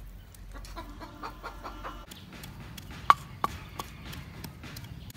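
A hen clucking in short repeated calls, then after about two seconds a few sharp knocks of a wooden pestle in a clay mortar, the first the loudest.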